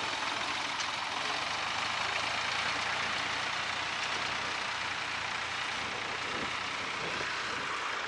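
Tractor engine running steadily under load as it pulls a mounted plough through the soil.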